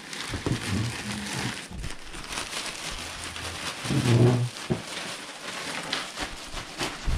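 Plastic poly mailer bag crinkling and rustling as a bubble-wrapped plush toy is worked into it by hand. There is a brief low muffled sound about four seconds in.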